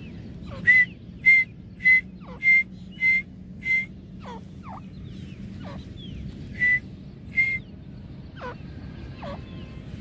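Grey francolin calling: a run of six sharp, high, whistled notes about two-thirds of a second apart, then two more a few seconds later, with softer falling notes in between.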